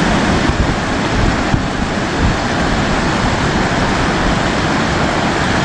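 Steady, loud rushing roar of a flash-flood torrent of muddy water, with a heavy low rumble.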